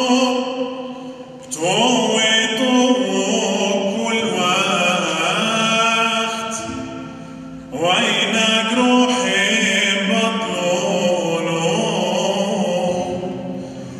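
A male voice singing an Aramaic hymn in long, ornamented phrases with wavering held notes, accompanied by a plucked long-necked lute. The singing breaks off briefly about one and a half seconds in and again near eight seconds, and each new phrase opens with a rising swoop.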